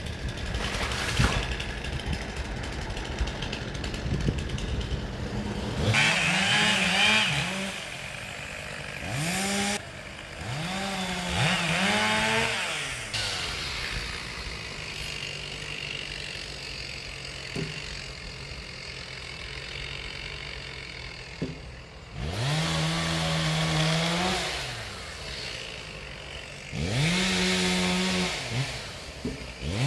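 Chainsaw revved up to full speed in about five bursts, each a quick rising whine that holds and then falls away, with the saw running low and rough between bursts.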